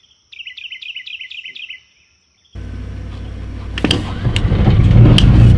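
A bird sings a quick run of about eight falling chirps. After a short gap, a switch clicks a few times and the van's onboard generator starts, its low engine hum swelling loud near the end.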